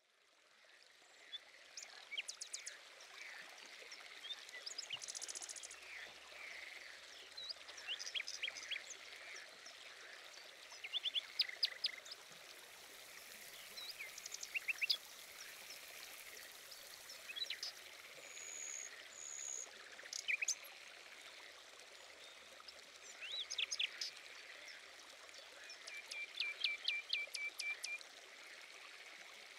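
Small birds chirping and trilling in short, scattered phrases over a steady rush of flowing water, with a fast run of repeated chirps near the end. The sound fades in from silence over the first two seconds.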